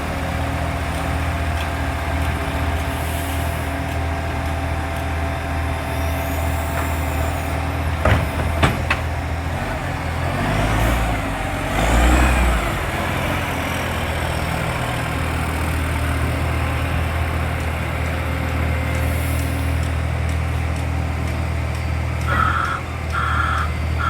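Garbage truck's diesel engine running steadily with an exhaust leak. The engine swells briefly about halfway through, and three short beeps sound near the end.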